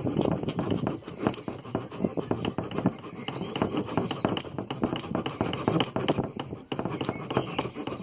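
Multitool's small saw blade cutting through a thin wooden branch in quick back-and-forth strokes.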